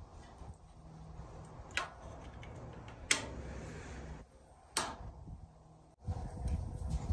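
Three sharp clicks about a second and a half apart, the middle one loudest, as the metal clips of a plated emblem are pressed into the holes of a painted sheet-metal washer panel and snap into place.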